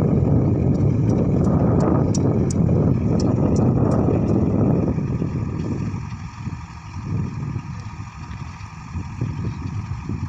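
Grove truck-mounted crane's diesel engine running under load while it holds a heavy screen unit aloft. It runs loud for the first half, then drops to a lower, patchier level about five to six seconds in.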